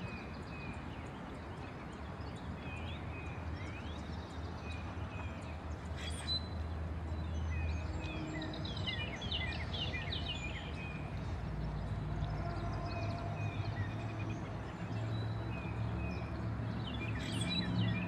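Songbirds chirping, many short rising and falling notes that are busiest about halfway through, over a steady low rumble. Two sharp knocks stand out, one about six seconds in and one near the end.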